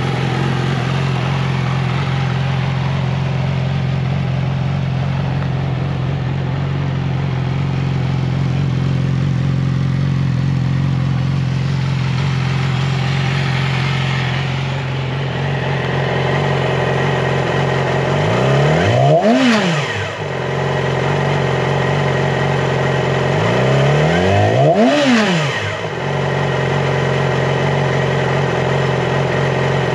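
2016 Yamaha R6's 599 cc inline-four, breathing through an Arrow titanium slip-on exhaust, idling steadily. After about eighteen seconds it is blipped twice, each a quick rise in revs and fall back to idle about five seconds apart, and a third rev starts at the very end.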